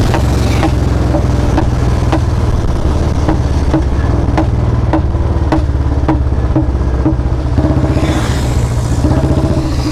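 Royal Enfield Bullet 350 single-cylinder engine running loud through a C-bend free-flow pipe and Long Punjab silencer, with sharp exhaust pops (backfire 'crackers') nearly twice a second. It revs up slightly near the end.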